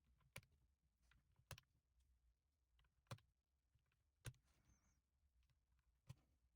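Single keystrokes on an Akko M1 V5 mechanical keyboard fitted with EPOMAKER Bluebird switches. Five separate, unhurried presses come about a second to a second and a half apart, each a short sharp clack.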